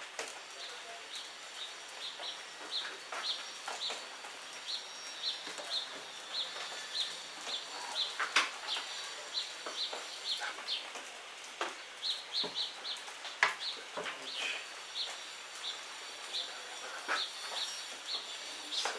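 A bird chirping over and over, short high notes about twice a second, with a few scattered clicks and knocks.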